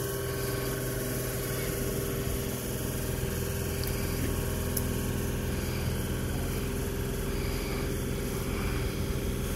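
Stationary Sydney Trains double-deck electric train idling at the platform with its doors open, its onboard equipment giving a steady hum with a few constant tones.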